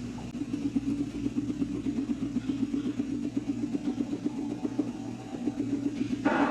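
Guinea pig purring rumble: a low, rapidly pulsing buzz that runs on steadily, with a short, brighter noise near the end.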